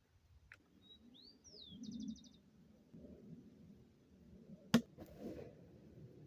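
A bird calling: a few short whistled notes that bend up and down, then a quick run of short chirps, about a second and a half in. A single sharp click comes near the end.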